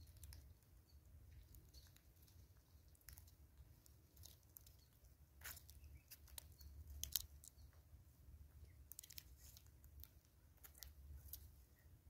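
Faint, irregular clicks and taps of a southern red-billed hornbill's bill pecking seed off a wooden tree stump, the sharpest about seven seconds in, over a low steady rumble.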